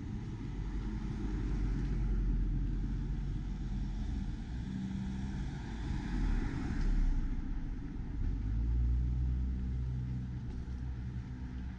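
Road traffic: vehicles driving past with engine hum and tyre noise that swells and fades, one passing loudest about seven seconds in.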